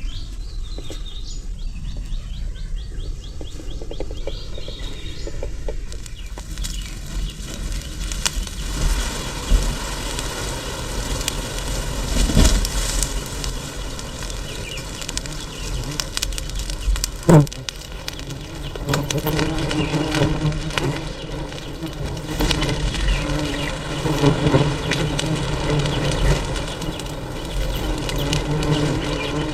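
A swarm of wild honeybees buzzing, a steady hum that grows stronger about two-thirds of the way through, with scattered knocks and rustles.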